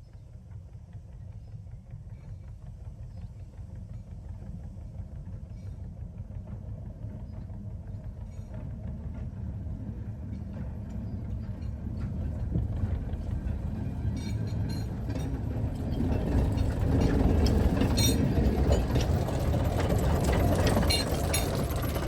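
Narrow-gauge train running toward the listener, its engine rumble growing steadily louder. Wheels click and rattle over the rails from a little past halfway, loudest near the end.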